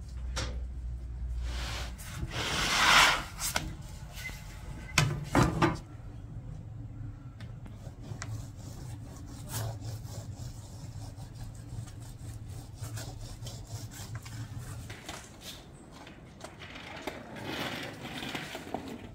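Rubbing and scraping on wood, in a few longer swells, with scattered knocks and clicks.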